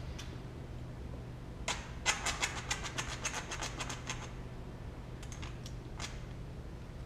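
Bicycle wheel and tire being handled while the tube and tire are fitted: a quick run of clicks and scrapes lasting about two seconds, with a few single clicks before and after, over a steady low hum.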